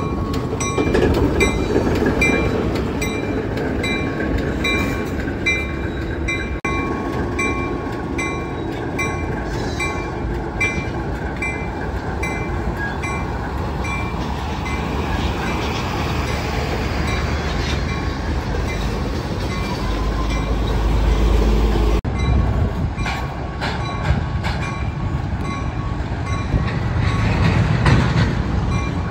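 ALCO RS-1 road switcher's turbocharged six-cylinder 539 diesel working under load as it pulls a train of loaded aggregate hopper cars, with the rolling rumble of the cars and a regular clicking from the train.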